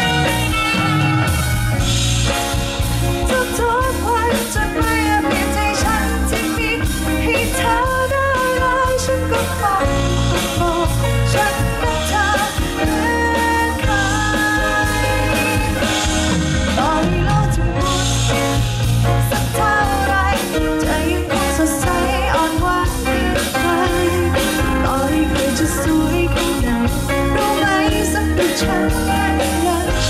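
Live band playing a pop-rock song with singing, over a steady drum beat and bass.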